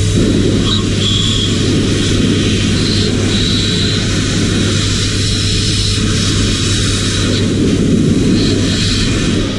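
An electric machine running steadily and moving air through a hose and wide nozzle, with a loud rush of air as the nozzle is worked over a paint spray gun to clear it out after cleaning.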